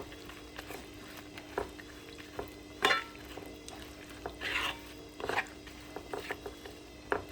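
Spoon stirring eggplant curry in a pot, with irregular knocks of the spoon against the pot (the loudest about three seconds in) and a brief scraping hiss about four and a half seconds in, over a steady low hum.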